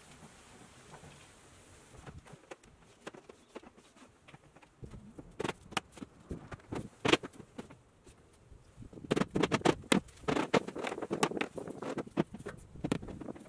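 Scattered knocks of plywood panels being pushed and fitted together into a cabinet. From about nine seconds in comes a quick run of rubber-mallet blows seating the panels.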